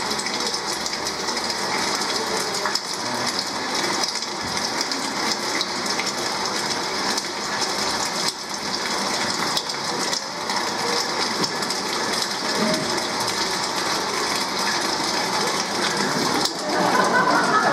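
Steady murmur of a seated audience in a hall, with no music playing. It grows a little louder and busier near the end.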